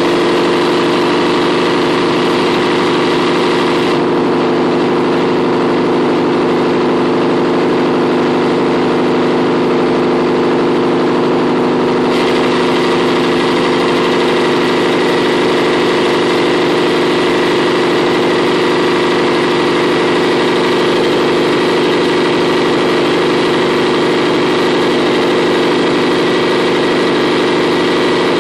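Compressor running steadily with a hum of several low tones. A higher-pitched rushing noise over the hum drops away about four seconds in and comes back about twelve seconds in. This is the intermittent abnormal sound, which comes and goes at irregular times without any change in the compressor's vibration.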